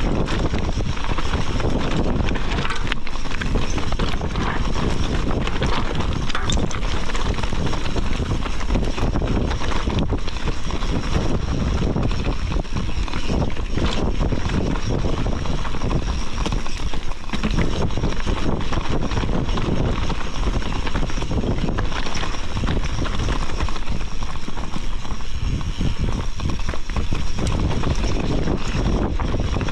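Wind buffeting the microphone while a bike runs down a rough dirt trail, with a steady stream of rattles and knocks from the bumps.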